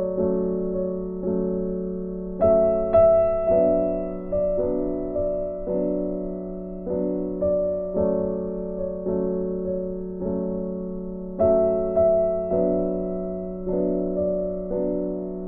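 Background music: a gentle piano piece, with notes struck about once a second over sustained low chords. It gets louder with a brighter phrase about two and a half seconds in and again near the end.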